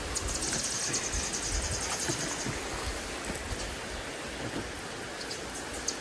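Backpack sprayer's wand spraying liquid onto weeds on a dirt path: a steady hiss with a patter like light rain.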